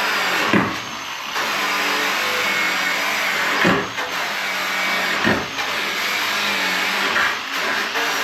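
Electric power tool with a wire wheel or abrasive disc stripping a car door panel to bare metal: a steady motor whine over abrasive hiss, its pitch sagging briefly four times as it bears into the metal.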